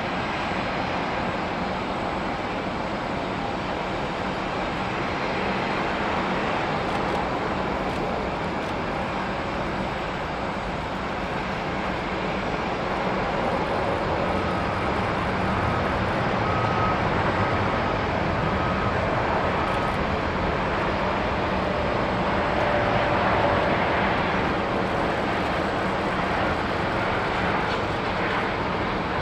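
Airbus A330-300 jet airliner landing and rolling out on the runway: a steady rush of jet engine noise that grows louder in the second half.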